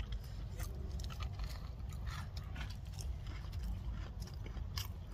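A person chewing a bite of double chocolate chunk cookie close to the microphone: irregular small mouth clicks and crunches, over a low steady rumble.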